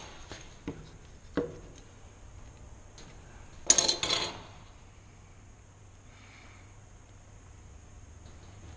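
Steel hand tools handled on a wooden workbench: a few light taps, then a brief clatter about four seconds in as the combination square is set down on the bench.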